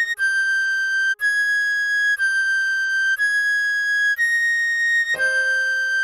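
A recorder playing a slow melody of held high notes, one about every second. A soft, steady lower chord tone underneath changes to a new pitch about five seconds in.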